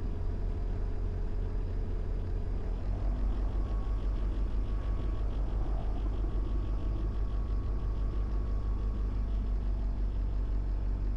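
Diamond DA20 light aircraft's piston engine running steadily at low power, heard as a low drone inside the cockpit; its note shifts slightly about three seconds in.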